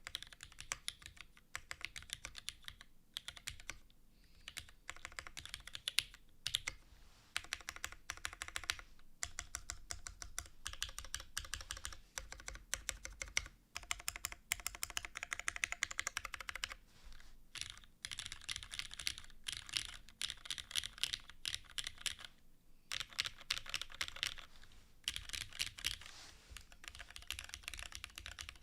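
Typing on a Keycult No.2/65 mechanical keyboard with Cherry HG Black linear switches, an aluminium plate, gasket mount, no case foam and GMK Posh ABS keycaps. It is a fast, continuous run of keystroke clacks with a few short pauses and the odd louder stroke.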